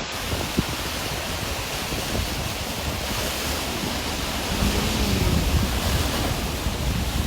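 Steady rushing noise of fast-moving water mixed with heavy wind buffeting the microphone.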